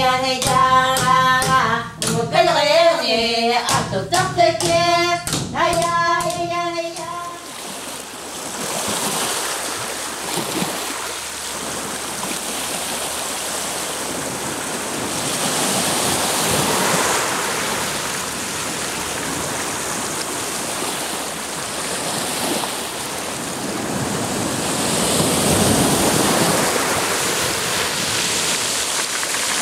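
Eskimo dance song: a group chanting 'ay, ay, ay' over sharp rhythmic beats, which stops about seven seconds in. Then small waves wash over rocks and pebbles on a shore, swelling twice.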